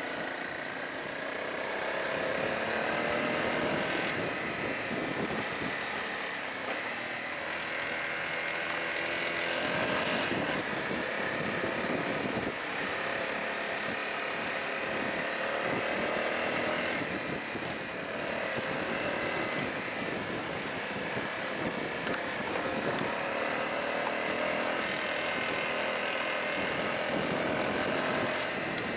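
Honda CRF250L's single-cylinder four-stroke engine running under way on a gravel road, its note climbing with the throttle and dropping back again and again as it is ridden, under a steady rushing noise.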